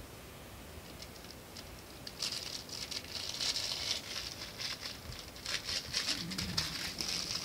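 Yorkshire terrier puppy scratching and pawing at a plush blanket and stuffed bear, a rapid scratchy patter that starts about two seconds in and keeps going.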